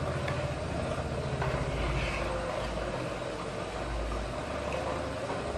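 Wooden spatula stirring a thin gelatin mixture in a nonstick saucepan on the stove, with soft scrapes and sloshes over a steady low hum.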